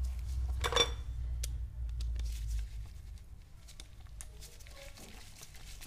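Metal tool and carburetor parts being handled during disassembly of a PWK carburetor: one sharp metallic clink about a second in, then light scattered clicks and taps, over a low rumble that stops near the middle.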